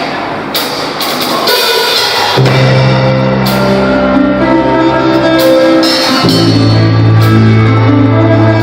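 Live rock band at a sound check. A drum kit plays with cymbal crashes, then about two and a half seconds in, sustained low bass notes and held guitar chords come in.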